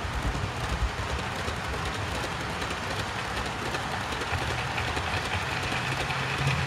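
Model trains running past on the layout's track, a blue diesel locomotive followed by a green steam locomotive hauling a rake of wagons. A steady running rumble with fine, rapid clicking of wheels over the rail joints, and a low motor hum that strengthens about four seconds in.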